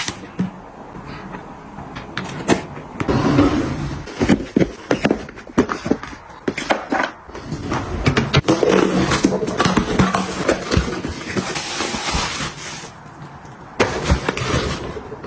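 Containers and packaging being handled and set down: irregular clicks, taps and knocks with rustling in between.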